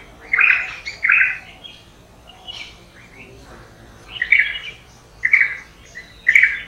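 Birds calling: a string of short calls, each under half a second, coming singly and in pairs about every one to one and a half seconds.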